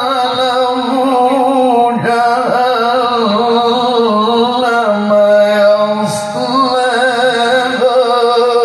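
A male qari reciting the Qur'an in the melodic tilawah style, drawing out a long, wavering, ornamented melisma on a held vowel.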